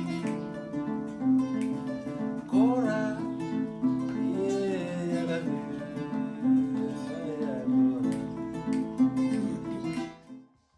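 Intro music led by plucked acoustic guitar, with a gliding melody line above it, fading out near the end.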